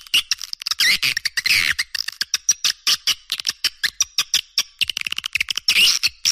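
Swiftlet lure call: many swiftlets twittering and clicking at once, a dense, rapid run of short chirps and clicks several to the second, played back to attract swiftlets to a nesting house.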